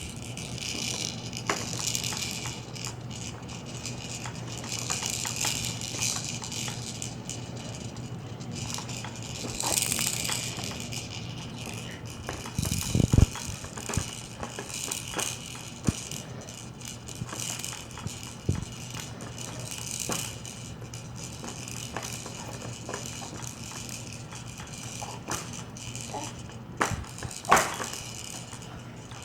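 Plastic toys on a baby's Jumperoo activity jumper rattling and clicking as the baby plays, with two louder thumps, one about halfway through and one near the end.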